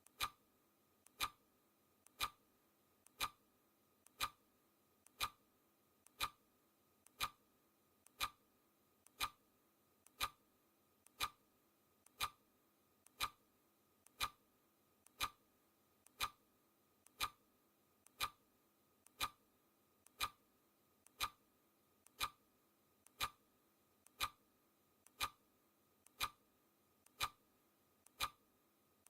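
Clock ticking sound effect, one sharp tick each second, steady like a countdown. A fainter click comes just before some of the ticks.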